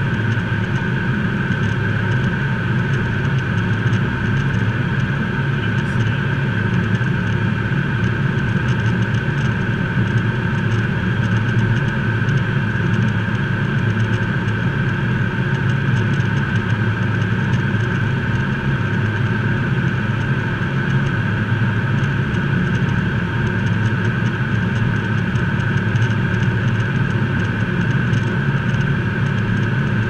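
Steady cockpit noise of a Learjet 35A on final approach: a low rumble of airflow with a constant high whine from its Garrett TFE731 turbofans.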